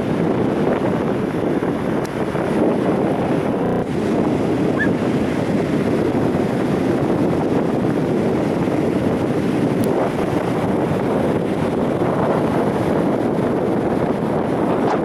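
Steady wind buffeting the microphone, over the wash of small waves breaking along the shore.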